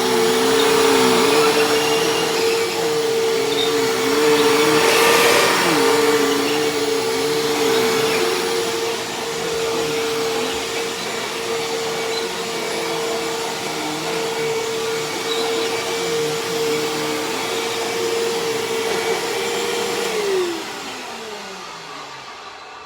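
Hoover Tempo bagless vacuum cleaner running steadily while sucking up shredded paper. About twenty seconds in it is switched off, and the motor winds down with a falling whine.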